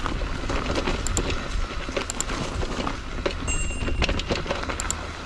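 Electric mountain bike rolling down a rough, loose trail: a steady low rumble from the tyres, with frequent knocks and rattles from the bike over stones and roots.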